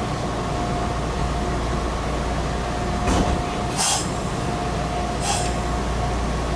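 Meitetsu 6000 series electric train heard from inside the car: a steady rumble with a faint steady whine. Three short, sharp clatters come about three, four and five seconds in.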